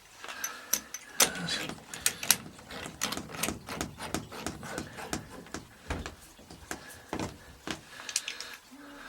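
Irregular sharp clicks and knocks of metal plumbing fittings on a bathtub mixer being handled and screwed up by hand and tool, several a second.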